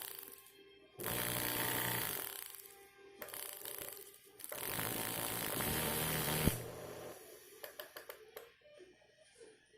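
Philips blender motor switched on in short bursts, whirring with a steady hum: one run of about a second that winds down, then a run of about two seconds that stops abruptly, followed by light clicks and rattles. It is the blender running after a repair for being completely dead.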